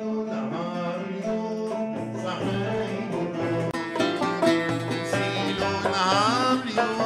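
A band playing with plucked string instruments (mandole and banjo) over keyboard, violin and hand drums, and a man singing a wavering, ornamented vocal line.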